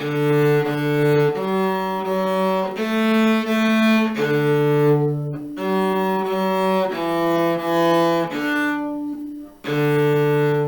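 Cello played with the bow (arco), slow beginner exercise of long sustained notes. The playing breaks off twice, about five and nine seconds in, where the bow is lifted and circled back for the next stroke.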